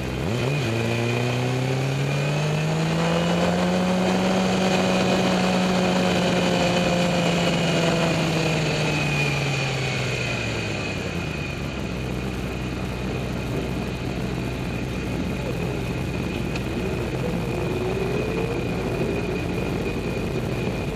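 Motorcycle engine on the track pulling hard: it revs up steeply about a second in, holds high revs for several seconds, eases off around halfway, then runs at lower revs before climbing again near the end.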